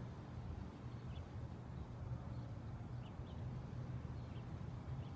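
Outdoor neighborhood ambience: a steady low hum with faint, scattered high chirps.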